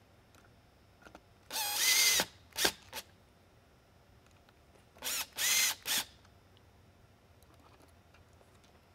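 Power screwdriver driving screws back into an LED lighthead's housing: two short runs, about a second and a half in and about five seconds in, its motor whining up in pitch and stopping, with a couple of clicks after the first.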